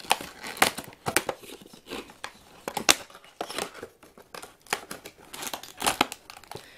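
Cardboard box and clear plastic clamshell packaging being opened and handled, the tray slid out of the box. Irregular sharp clicks, crackles and crinkles of plastic and card.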